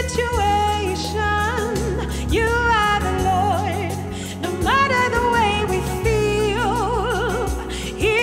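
Gospel worship music: a solo voice sings held notes and wavering, ornamented runs over a sustained low accompaniment.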